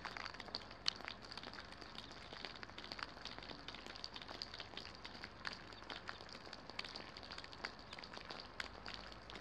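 Light rain falling: scattered raindrops ticking irregularly over a faint steady hiss.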